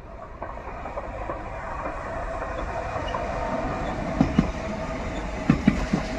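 PKP Intercity ED74 electric multiple unit passing through without stopping: a rushing sound with a steady whine that grows louder as it approaches. From about four seconds in come wheels clacking over rail joints in quick pairs.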